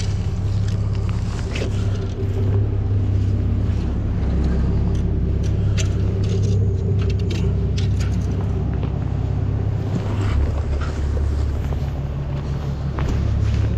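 A steady low rumble with a low hum, overlaid by scattered clicks and rustles from the camera being handled and moved.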